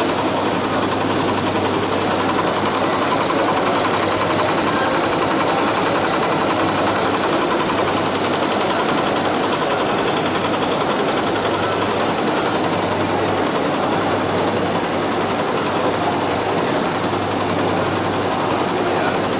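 Surya S-1201PT single-head, 12-needle computerized embroidery machine stitching steadily at speed, a rapid, even mechanical clatter.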